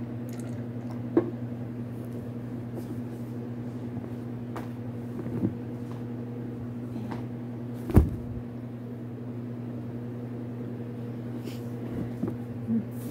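Steady low electrical hum with a few light knocks and one louder thump about eight seconds in: handling noise as the camera is moved and tipped.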